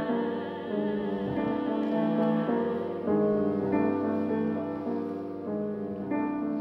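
Piano accompaniment to a show tune, playing a gentle passage of chords and notes. A singer's held note with vibrato trails off about a second in.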